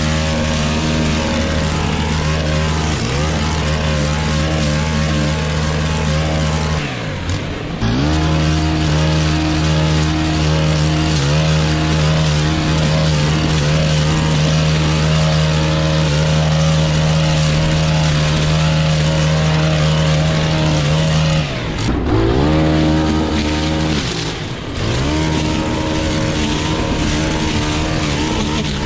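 Stihl FS 131 brush cutter's 4-MIX engine running at high throttle while its trimmer line cuts grass and brush. The throttle is let off and opened again three times: once about a quarter of the way in, then twice close together later on, the engine note dropping and rising back each time.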